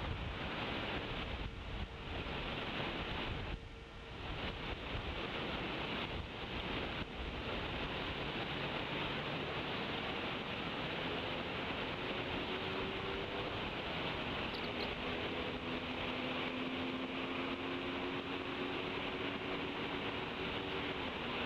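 Steady wind and outdoor hiss on the nest camera's microphone. In the second half a faint low drone comes in, gliding slightly in pitch.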